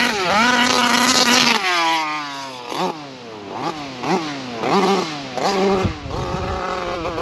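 Taylor RC 55cc two-stroke engine of a Losi 5ive-T 2.0 RC truck revving. It holds high for about a second and a half and falls away. Then it is blipped up and down several times in quick succession before settling to a steadier, lower speed.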